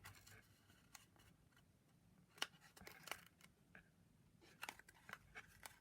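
Faint, scattered clicks and rustles of card and tape being handled as the tabs of a paper hat piece are stuck together, a few sharp ticks standing out.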